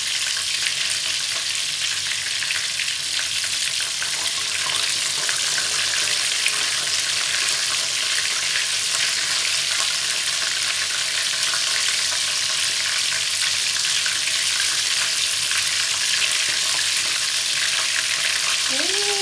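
Breaded chicken pieces frying in hot oil in a pan: a steady, even crackling sizzle. The chicken is still cooking toward golden brown, a few more minutes from done.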